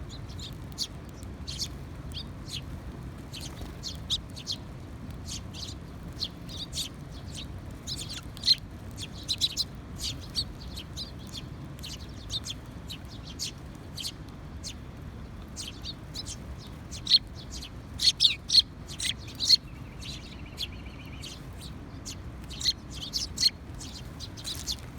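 Sparrows chirping: short, sharp chirps at irregular intervals, with busier flurries about a third of the way in and again past the two-thirds mark, over a steady low background rumble.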